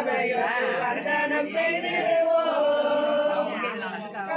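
A group singing a Tamil kummi paattu folk song together, with long held notes that bend gently in pitch.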